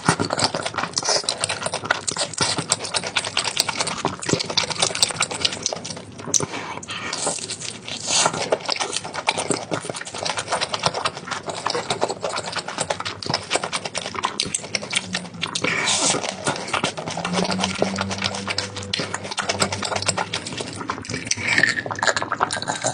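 A person chewing and crunching food close to the microphone, with dense crackly crunches throughout.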